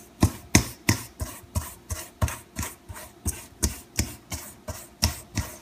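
A metal fork scraping and knocking against a stainless steel bowl in steady strokes, about three a second, as softened butter and brown sugar are mixed together.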